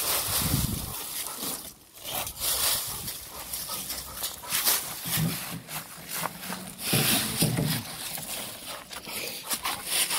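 Dogs making irregular short vocal noises as they play with a ball.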